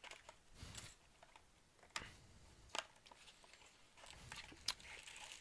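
Faint handling sounds of a cardboard box being opened after its tape is pulled off: soft rustling with three light clicks.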